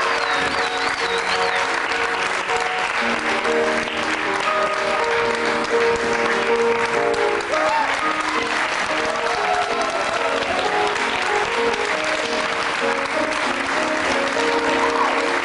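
Audience applauding steadily over instrumental music that plays held notes.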